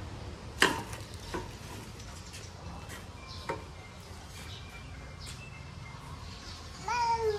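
Slats of a roll-up folding tabletop clacking and clicking against each other as it is folded into a stack: one sharp clack about half a second in, then scattered lighter clicks.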